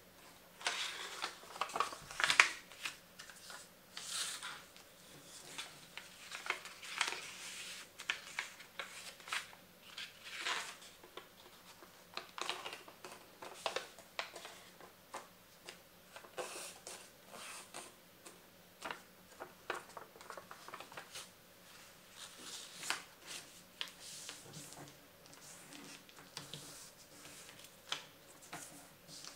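A sheet of paper being folded by hand: irregular rustling and crinkling with short sharp crackles as the creases are pressed and the paper is bent and turned over on a wooden tabletop.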